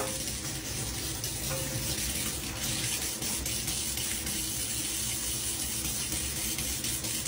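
Kitchen tap running a thin stream into a stainless steel sink, a steady splashing hiss, broken by a cat pawing at the falling water.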